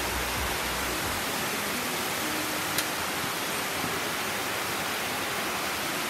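Small mountain-stream waterfall rushing over rocks, a steady even hiss of falling water. A single sharp click about halfway through.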